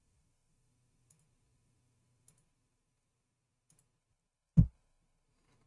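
Computer keyboard and mouse clicks: a few faint scattered clicks, then one much louder sharp click with a low thud about four and a half seconds in.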